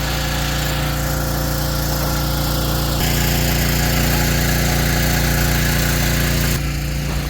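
Diesel tractor engine running steadily, a little louder from about three seconds in until shortly before the end.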